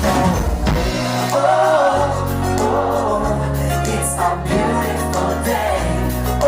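Background music: a sung song with held vocal lines over sustained bass notes.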